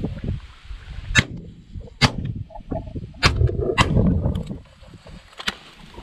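Shotguns fired at geese: five sharp reports, two close together about a second in and two more past the three-second mark, with a last one near the end.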